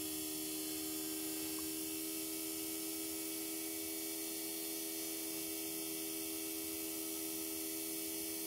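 A mains-rated AC motor spinning fast on a home-built three-phase IGBT inverter, with its DC bus at about 220 volts. It gives a steady electrical hum made of a few fixed tones over a faint hiss.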